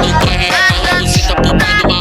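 Brazilian funk dance music, instrumental at this point, with a heavy bass kick that slides down in pitch a few times a second.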